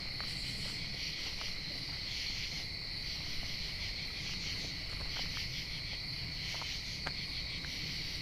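Steady chorus of crickets, a continuous high-pitched trill, with a few faint ticks now and then.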